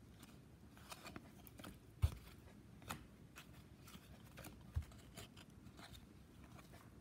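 Hockey trading cards being thumbed through by hand: faint scattered clicks and slides of card stock against card stock, with a soft thump about two seconds in and another near five seconds.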